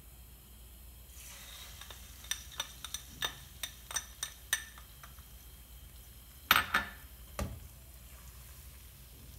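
Beaten egg poured into a hot nonstick frying pan starts a soft sizzle about a second in, while a spatula clinks quickly against the bowl and pan. Near the end, two louder clanks come as the pan is shifted on the gas hob's iron grate.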